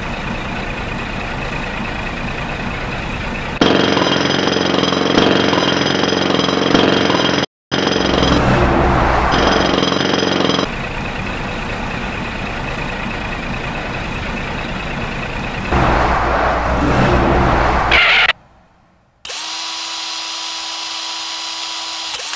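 Dubbed truck engine sound effect running steadily, louder in two stretches and cutting out briefly once. After a short silence near the end it gives way to the steady whine of a rock drill boring into stone.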